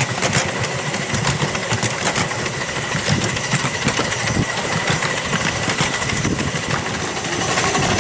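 7¼-inch gauge Fairlie's Patent steam locomotive working steadily along, its exhaust chuffing in a regular beat, with the wheels clattering on the rails. It gets a little louder near the end.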